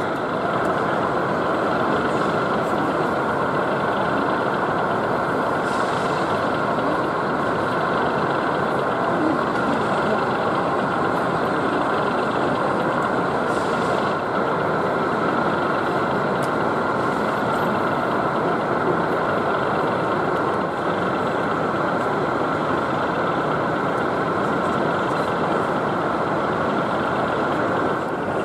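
Steady background hubbub of a busy exhibition hall: an even wash of crowd noise and hall hum, with no single sound standing out.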